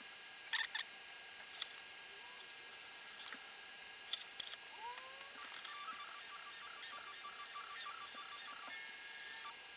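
A few sharp clicks and taps of hands working on the Prusa i3 MK3 3D printer, then, from about halfway, the faint steady whine of its stepper motors moving the bed.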